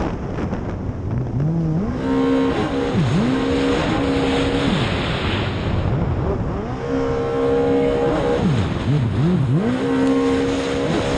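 Racing jet ski's engine revving in repeated throttle bursts: the pitch climbs, holds for a second or two and drops back several times. Underneath is a steady hiss of water spray and wind.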